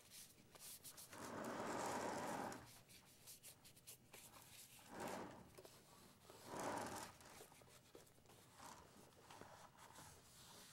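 Damp paper towel rubbing over the body and base of a Nikon Eclipse E100 microscope: faint wiping strokes. The longest comes about a second in, followed by two shorter ones a few seconds later.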